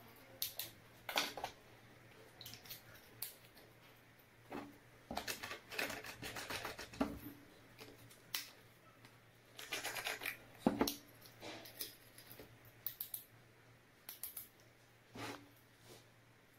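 Plastic lotion pump parts and a clear plastic bottle being handled and fitted together by hand: irregular small plastic clicks, scrapes and rustles, bunched in short flurries.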